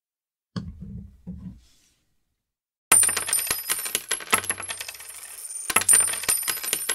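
Two soft knocks of a coin capsule being handled. From about three seconds in comes a dense, continuous run of bright metallic clinking and jingling, like coins, with a low thud about every second and a half, under the channel's end card.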